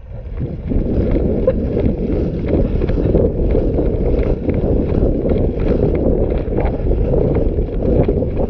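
Loud wind rumble on a GoPro's microphone as its wearer runs across a grassy meadow, with repeated footfalls and gear rattling; it comes up within the first second.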